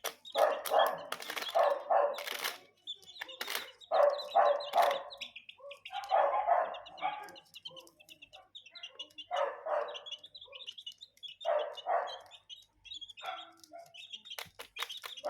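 Chicks peeping steadily in high, rapid notes, with clusters of louder, lower calls every few seconds and scattered sharp taps.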